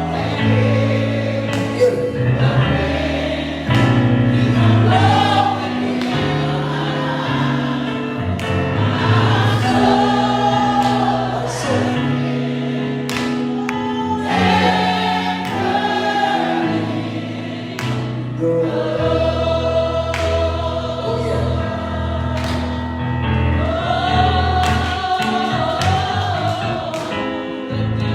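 Gospel choir singing with instrumental accompaniment: held chords, a steady bass line and light percussion.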